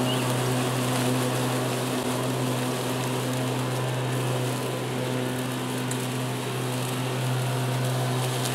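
PowerSmart 80V cordless electric lawn mower running its two side-by-side blades while cutting grass: a steady low electric hum over a rushing noise.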